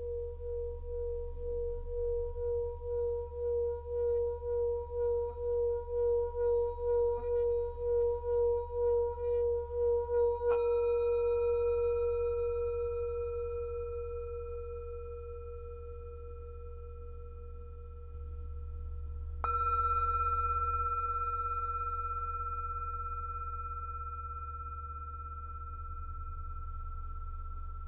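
Tibetan singing bowl: a wavering tone that pulses about twice a second and swells as the rim is rubbed. The bowl is then struck about ten seconds in, and again, louder, near twenty seconds; each strike rings out with higher overtones and fades slowly. A steady low hum sits underneath.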